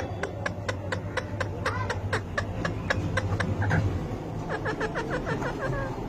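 Blue Indian ringneck parakeet nibbling a fingertip, making a quick, even run of sharp beak clicks, about four or five a second, mixed with soft wavering mumbled chatter that thickens near the end.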